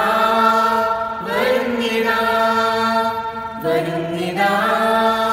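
A small group of teenage boys and girls singing a Malayalam hymn together, drawing out long held notes.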